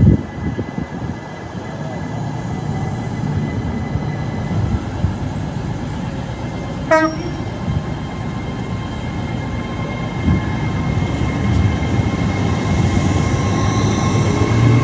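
A train running past with a steady low rumble, and a very short horn toot about halfway through. Tones rise near the end.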